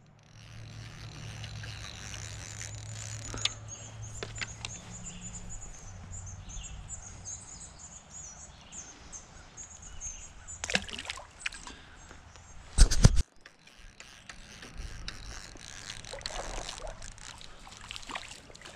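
Shallow creek water trickling and running steadily, with small handling clicks and a faint low hum in the first few seconds. A brief, loud thump hits the microphone about thirteen seconds in.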